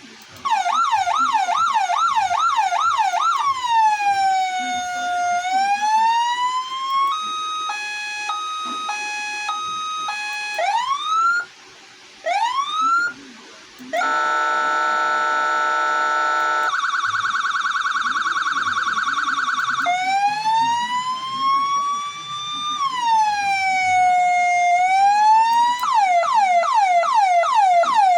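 SER840 electronic siren cycling through its tones: a fast yelp of about two sweeps a second, a slow wail falling and rising, a two-note hi-lo, short rising whoops, a steady buzzy horn tone, a fast warble, then the slow wail and the fast yelp again.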